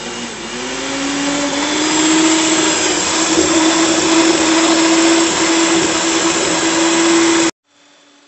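Mondial stand mixer running at maximum speed, its beaters whipping chilled chantilly cream toward a firm foam. The motor whine rises in pitch and loudness over the first couple of seconds, then holds steady, and cuts off abruptly near the end.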